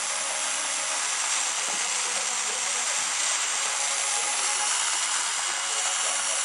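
Weak shortwave AM broadcast of Voice of Turkey on 5980 kHz received with an RTL-SDR: steady static hiss with a faint voice buried under it.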